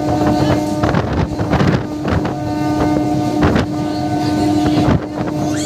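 MEMU electric train running at speed, heard from an open door: wind buffeting the microphone over the rumble of wheels on rail, with a few sharp clacks over rail joints. A steady whine runs under it.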